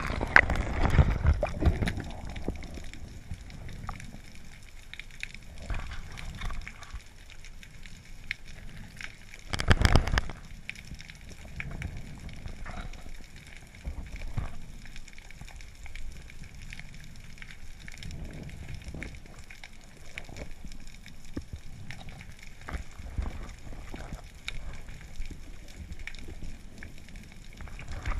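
A diver's splash going under the surface, then muffled underwater water noise: low sloshing and rumbling with occasional knocks, and a louder rush of water about ten seconds in.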